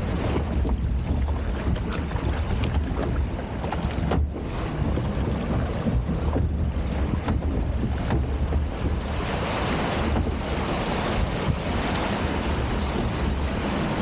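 Log flume boat gliding through the water channel: wind buffets the microphone with a low rumble over steady rushing water, and the water hiss grows louder about two-thirds of the way through.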